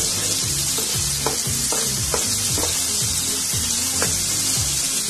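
Potato chunks and sliced onion sizzling in hot oil in a frying pan, stirred with a wooden spatula that scrapes the pan a few times. Background music plays underneath.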